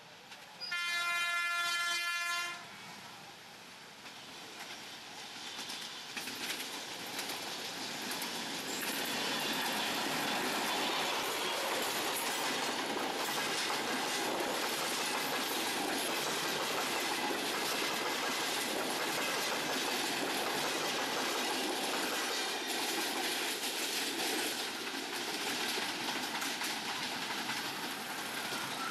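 Diesel locomotive horn gives one steady blast of about two seconds, then a broad-gauge diesel commuter train comes up and passes close by: the rumble grows over several seconds and settles into a continuous clatter of coach wheels over the rail joints as the carriages roll past.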